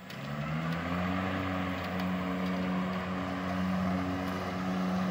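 Electric mower-blade motors spinning up, the hum rising in pitch over the first second, then running steadily at speed, a low steady hum with a whir above it.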